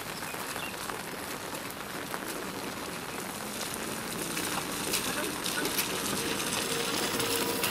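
Steady hiss of rain on a wet road, with many small patters and faint men's voices in the background; it grows louder over the last few seconds.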